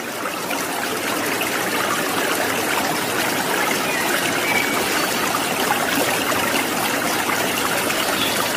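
Small fountain jet splashing steadily into a koi pond, a continuous splashing and trickling of water.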